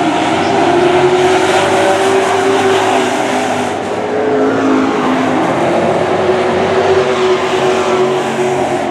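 Engines of two dirt-track super trucks running hard at racing speed around the oval, the engine note wavering up and down with the throttle through the turns.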